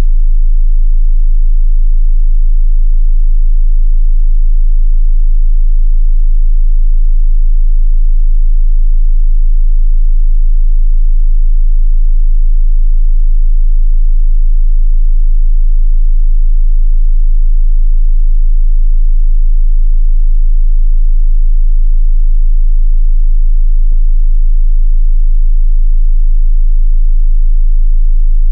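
A 27 Hz sine-wave bass test tone: one continuous, very deep tone held at a steady pitch and level, loud, for testing subwoofers.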